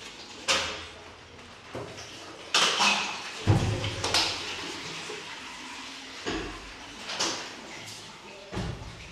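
Toilet stall doors being opened and shut: a series of knocks and thuds, the loudest about three and a half seconds in.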